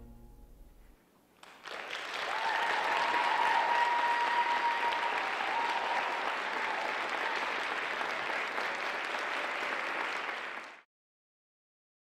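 Theatre audience applauding after the music fades out, with one long held cheer over the clapping for a few seconds; the applause cuts off abruptly near the end.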